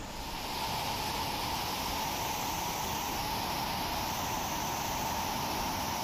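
Monsoon floodwater rushing down a rocky stream bed and waterfall: a steady, even rush of water.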